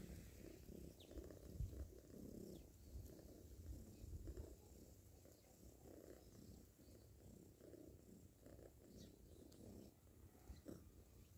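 Domestic cat purring faintly during nursing, a low, continuous rumble in repeated pulses.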